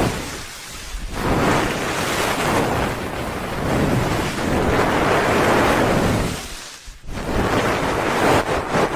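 Hands rubbing over a binaural ear microphone: a loud, rushing whoosh that swells and fades, breaking off briefly about half a second in and again just before seven seconds, then turning to fast, evenly repeated strokes near the end.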